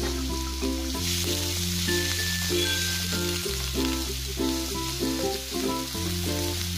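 Chopped onions sizzling as they fry in hot oil in a nonstick pan, stirred with a wooden spatula, under background music with a bass line and repeating notes.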